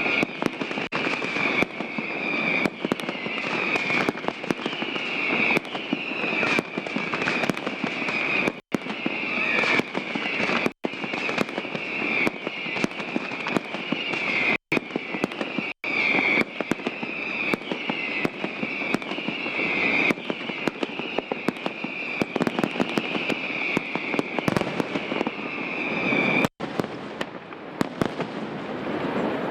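Aerial fireworks display going off in dense, rapid succession: continuous bangs and crackling with no pause. A high-pitched steady tone runs under the bangs and stops a few seconds before the end.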